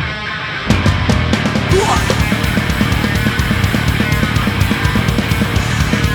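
Instrumental passage of a heavy punk-style rock song with no vocals: full band with fast, driving drums, coming in louder and denser under a second in after a thinner opening moment.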